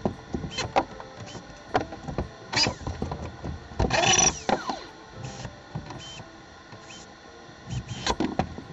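Knocks and clicks of tool handling against a plywood wall panel, with a brief whir of a small hand-held power tool about four seconds in.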